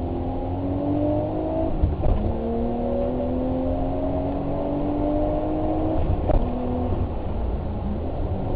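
Vehicle engine accelerating under load, its pitch climbing steadily and dropping at gear changes about two seconds in and again around six seconds, with a knock at each change over a constant low rumble.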